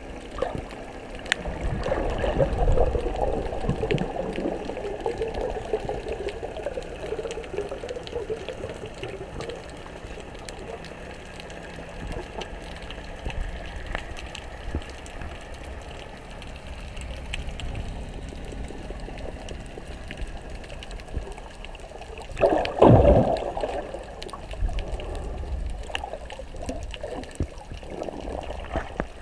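Sea water heard underwater through a GoPro's housing: a muffled rushing and gurgling as the camera moves through the water, with a louder gurgling surge about three quarters of the way through.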